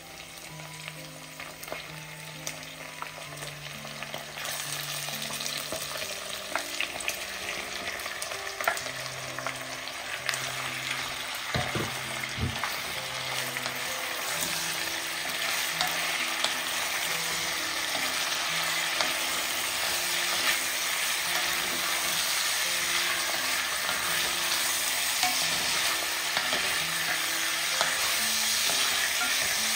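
Beef chunks and sliced onions sizzling in hot oil in an enamelled cast-iron Dutch oven, stirred with a wooden spoon. The sizzle swells a few seconds in and grows steadily louder as the meat sears, with occasional light clicks of the spoon against meat and pot.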